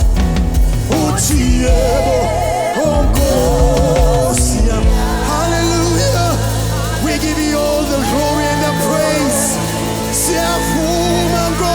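Live gospel worship music: a band playing sustained chords and bass, with a singer's voice wavering in vibrato over it, then holding longer, steadier notes.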